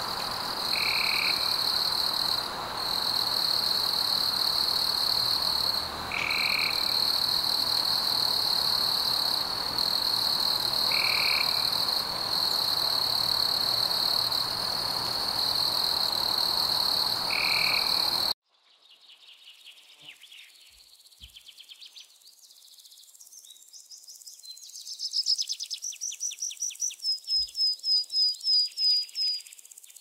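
Animal chorus of insects and frogs. A steady high-pitched insect drone carries a brief call that repeats about every five seconds. About eighteen seconds in it cuts abruptly to rapid pulsed chirping calls that grow louder near the end.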